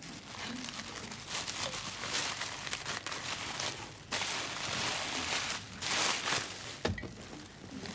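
Tissue paper crinkling and rustling in swells as a present wrapped in it is unwrapped by hand, with a single knock near the end.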